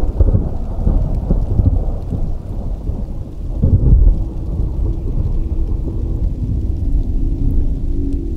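Thunderstorm ambience: a low rumble of rolling thunder with rain, swelling about three and a half seconds in. Faint steady musical tones come in near the end.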